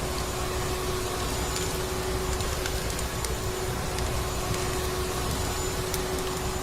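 Vacuum cleaner running steadily, a constant whooshing drone with one steady hum tone, with a few faint wood-fire crackles scattered through it.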